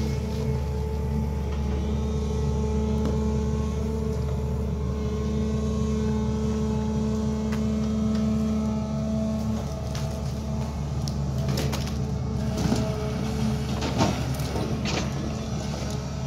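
SANY crawler excavator's diesel engine and hydraulics running steadily under load while the bucket digs rock from a well pit. From about ten seconds in, rock knocks and scrapes against the steel bucket in several sharp clatters.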